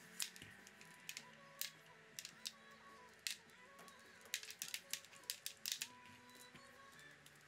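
Light clicks and taps of plastic being handled, about a dozen spread irregularly and bunched in the second half, as a blue air hose is fitted onto the laser's small air compressor. Faint background music runs underneath.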